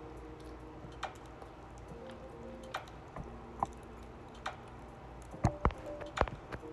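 Quiet eating sounds: scattered small clicks and taps from wooden chopsticks and chewing, a few louder ones near the end, over faint background music.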